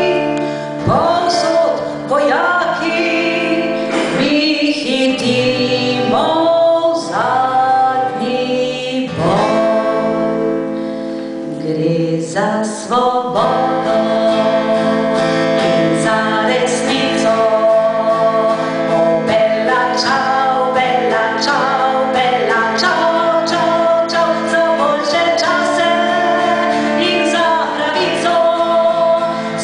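A woman singing a song into a microphone while playing an acoustic guitar.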